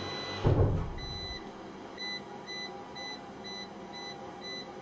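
Front-panel beeper of a Mecer WPRU 10 kVA online UPS giving short high beeps about twice a second as the menu scroll button is pressed. There is a brief low thump about half a second in.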